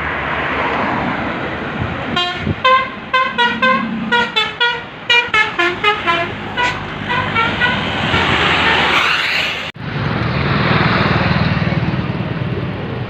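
Tour bus's multi-tone musical air horn (basuri 'telolet' horn) playing a quick tune of short toots at changing pitches. The bus then passes with a rising rush of engine and road noise that cuts off abruptly near the end, followed by steady engine noise.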